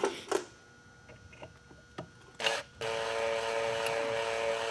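A few knocks and clicks, then, about three seconds in, an electric drill starts and runs steadily with a motor whine. It is driving a reverse (left-hand) drill bit into a broken screw in a chainsaw's magnesium crankcase to back the screw out.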